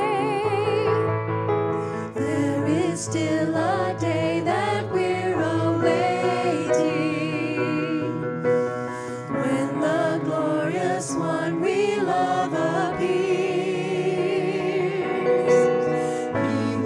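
A vocal quintet singing a Christian song in harmony, several voices moving together with vibrato.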